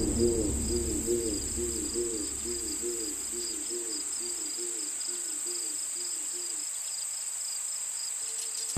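Crickets trilling steadily in a night chorus, with a lower chirping call repeating about three times a second that stops about two-thirds of the way through.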